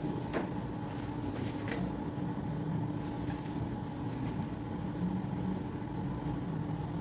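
Steady room hum with a few faint clicks.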